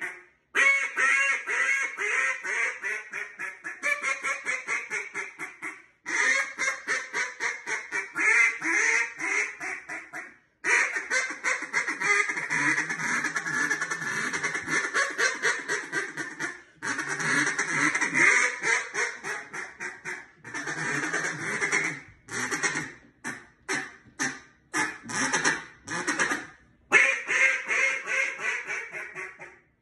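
Duck call blown by mouth in a meat-calling routine: long runs of rapid quacks with brief pauses between them, then a few separate, spaced quacks, and a last fast run near the end.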